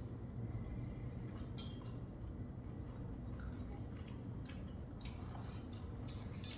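A few light, scattered clinks and handling sounds of spoons and plates as people eat by hand from a shared dish, the sharpest clink near the end, over a steady low hum.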